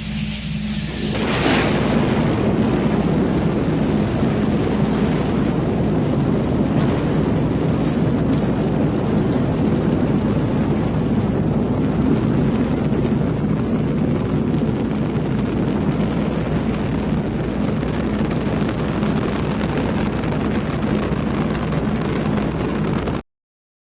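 Rocket launch: a loud, steady rumble of rocket engines at liftoff, over a constant low hum. It swells suddenly about a second in and cuts off abruptly near the end.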